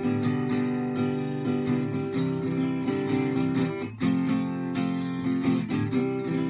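Instrumental music: acoustic guitars strummed and picked in a steady rhythm, with no singing.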